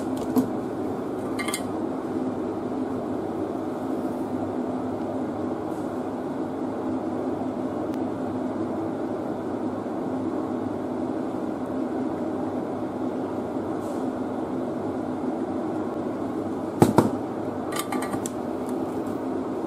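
A steady hum, with a few short sharp clicks and taps from handling tools and the circuit board on the workbench. There is one click about a second and a half in and a cluster near the end.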